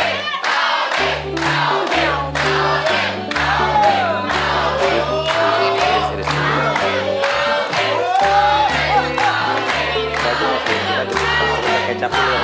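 Upbeat background music with a steady beat of about two a second, a bass line and singing voices.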